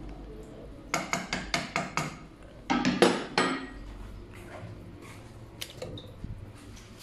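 Kitchen cookware clatter: a cooking pot and utensils knocking, with a quick run of about six sharp knocks, then a louder clatter about three seconds in and a few light clicks after.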